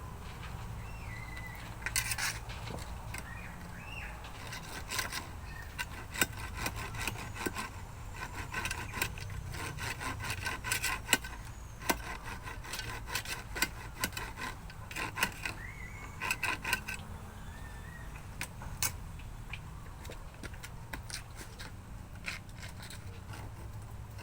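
Hand-tool scraping and rubbing: irregular rasping strokes mixed with sharp clicks and knocks, busiest through the middle and thinning out near the end.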